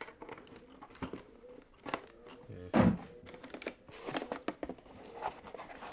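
Handling noise from equipment being moved and set down: scattered light clicks and knocks, with one heavier thump about three seconds in, over a faint steady tone.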